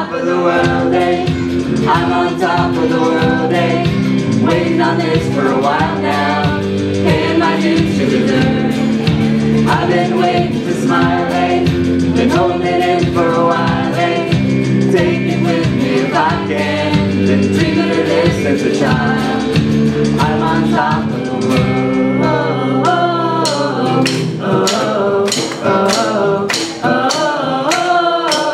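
A live band with a woman singing lead over guitars, and a roomful of people singing along in chorus. About three-quarters of the way through the low bass drops away and an even rhythm of sharp strokes carries the song on.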